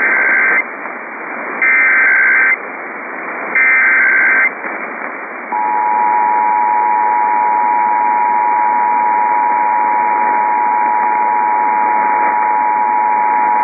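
Emergency Alert System SAME header: three short data bursts, each under a second and about two seconds apart, then from about five and a half seconds in the steady two-tone EAS attention signal. All of it comes over steady radio hiss.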